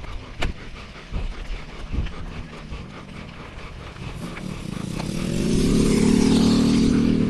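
Bicycle rolling over gravel with rumble and scattered knocks, then a motor vehicle's engine grows louder from about four and a half seconds in and is loudest near six seconds.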